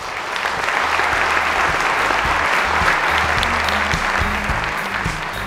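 Audience applauding at the end of a talk, swelling in the first moment and easing a little toward the end, with music playing underneath.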